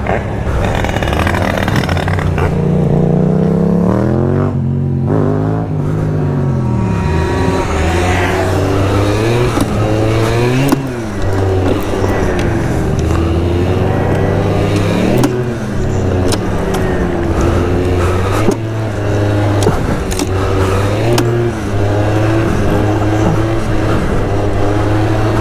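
MBK Booster scooter's two-stroke engine under way, its pitch rising and falling as the throttle is opened and eased several times, then running more steadily in the second half. The scooter lacks pickup under acceleration.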